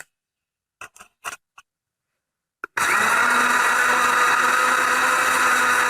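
A few light knocks, then an electric blender motor starts about three seconds in and runs steadily at speed, blending banana juice.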